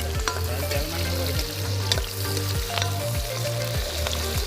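Food sizzling as it fries in a hot kadai (wok) and is stirred, with scattered sharp ticks and crackles. A low, steady thumping beat, about two a second, runs underneath.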